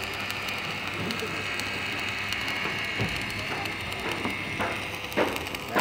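Stick (shielded metal arc) welding on steel rebar: the electrode arc crackling and hissing steadily as a lap splice is welded.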